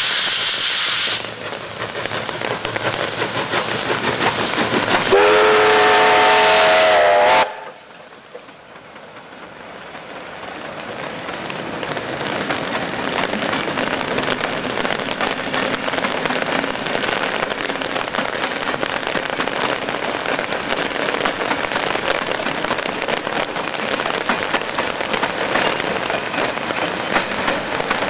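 C32 class 4-6-0 steam locomotive 3237 passing with a loud hiss of steam, then a steam whistle blast of about two and a half seconds that cuts off suddenly. Then its passenger carriages rolling past in heavy rain: a steady hiss of rain over the wheels on the track.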